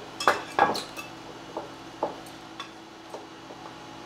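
Kitchenware being handled on a counter: a ceramic baking dish and metal measuring spoons knocking and clinking. A few sharper knocks come in the first second, then only scattered faint ticks.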